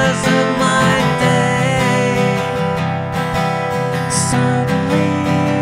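Background music of strummed acoustic guitar, playing steadily.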